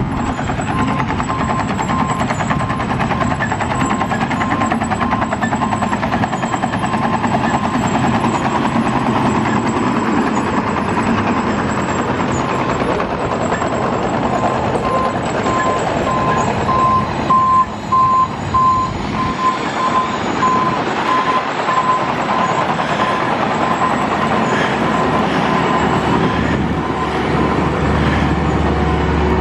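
Heavy diesel road-work machinery and dump trucks running steadily, with a truck's backup alarm beeping at an even pace and falling silent about two-thirds of the way through.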